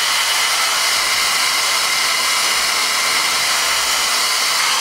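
Handheld hair dryer running steadily, a rush of air with a faint high whine, blowing over freshly sprayed edges of a lace wig to lay the flyaways.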